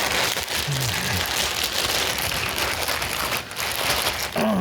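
Dense crackling and crinkling of plastic packaging being handled, with a short low falling grunt about a second in and another near the end.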